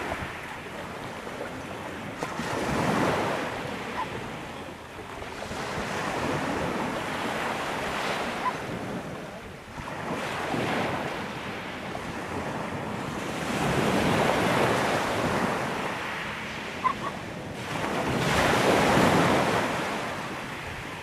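Small sea waves washing onto a pebble beach, surging and fading every few seconds, with wind buffeting the microphone.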